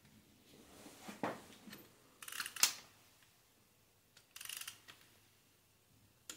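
Harbor Freight click-type torque wrench ratcheting on a cylinder head bolt of a 2.4 Ecotec engine, in two short runs of metallic clicks with single clicks between them; the loudest is one sharp click about two and a half seconds in. The bolts are being tightened in sequence to 22 foot-pounds on the first pass.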